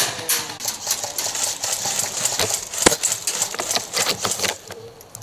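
Airsoft gunfire: fast, irregular clicking, with one sharper, louder snap about three seconds in.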